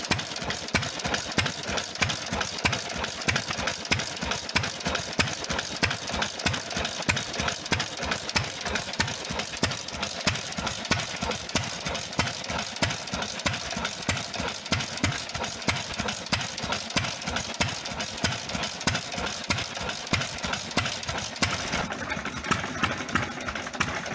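Vintage hopper-cooled stationary engine running at low speed, a rapid, even clatter of valve gear and ignition clicks. Near the end the sound turns duller, with less hiss and tick on top.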